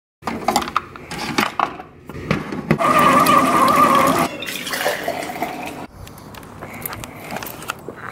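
A coffee machine brewing into a mug. A few clicks and knocks come first, then about a second and a half of loud, steady pump hum and hiss, followed by a quieter run of coffee pouring into the cup.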